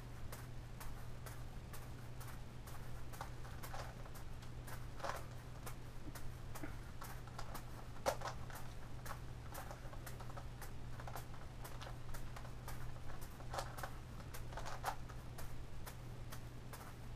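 Irregular light clicks and taps, a few each second, from the plastic layers of a Gigaminx puzzle being turned and from juggling balls landing in a hand.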